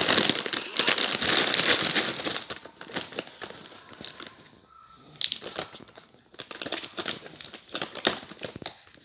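Plastic snack packets and chocolate-bar wrappers crinkling as they are handled and moved. It is loudest and most continuous for the first two seconds or so, then comes in scattered short crackles.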